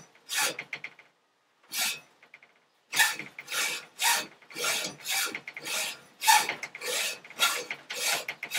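Hand hacksaw cutting through a metal pin clamped in a bench vise, in regular rasping strokes of about three a second. The strokes pause about a second in, with a single stroke, then start again and run on evenly.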